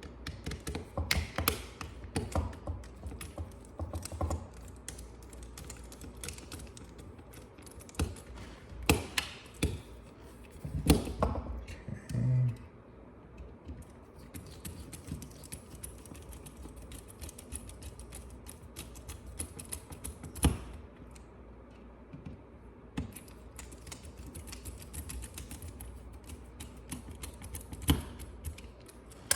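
Irregular small clicks and taps of launcher parts being handled and fitted together while an HDB68 launcher is reassembled around a new detent, busiest in the first twelve seconds, with a quieter stretch after.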